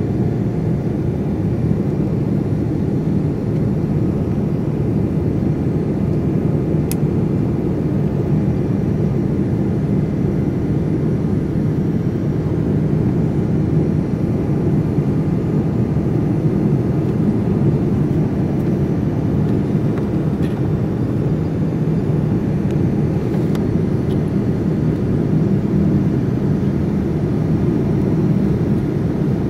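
Steady roar of a Boeing 787-9's engine and the airflow, heard inside the cabin at a window seat by the wing, during the climb after takeoff. A few faint clicks stand out over it.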